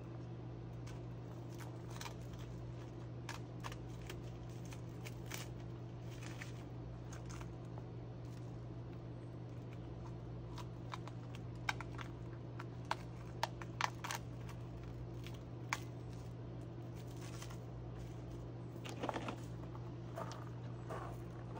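Sharp clicks and light knocks of sawmill parts and packaging being handled inside a plywood shipping crate during unpacking, a run of them a little past the middle and a small cluster near the end, over a steady low hum.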